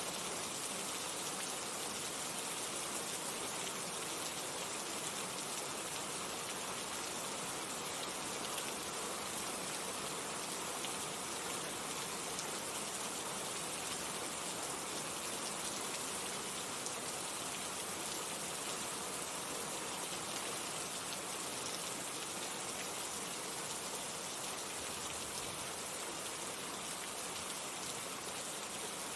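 Steady rain falling, an even hiss of many drops hitting surfaces with fine scattered patter.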